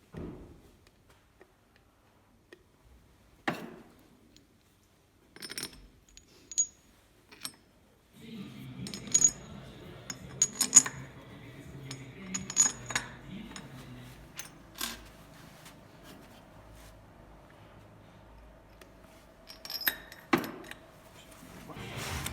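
Steel parts of a hydrostatic pump being assembled, clinking and knocking against each other with sharp, ringing metallic clinks. The clinks are sparse at first and come thicker from about eight seconds in, over a steady low hum.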